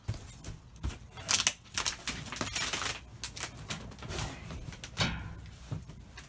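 Cardboard boxes and trash bags being rummaged through and shifted in a dumpster: an irregular run of rustles, scrapes and knocks, loudest about a second and a half in.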